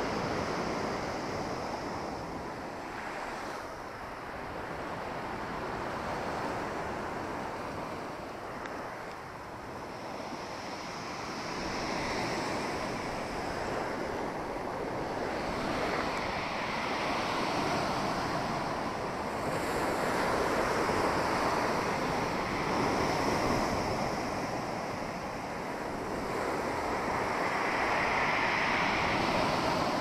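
Sea surf: waves breaking and washing up the shore, the noise swelling and easing every few seconds, with some wind buffeting the microphone.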